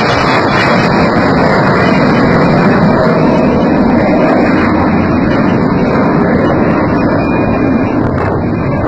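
Jet aircraft flying past at an air show: a loud, steady engine noise that eases slightly near the end.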